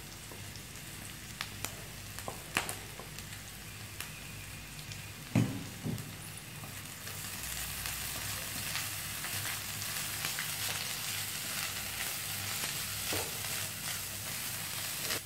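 Oil sizzling in a wok as semi-pounded anchovies are stir-fried with onion and chilies; a wooden spatula knocks against the pan a few times, loudest about five seconds in. The sizzle grows louder about halfway through.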